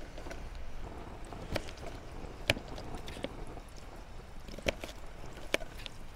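Kitchen knife cutting a sweet potato on a plastic chopping board: a series of sharp, irregular knocks as the blade goes through and taps the board.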